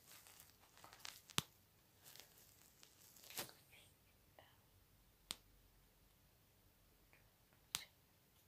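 Near silence with faint breathy whispering in the first half and three sharp, isolated clicks.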